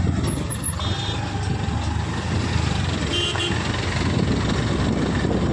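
Steady wind buffeting and road rumble from a moving Honda Activa scooter riding through town traffic. Two short high beeps from a nearby vehicle come through, about a second in and again about three seconds in.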